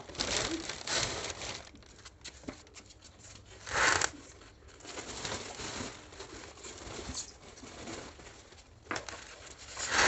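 Plastic packaging wrap crinkling and rustling as it is pulled off a new front-loading washing machine. There is a brief louder tear about four seconds in.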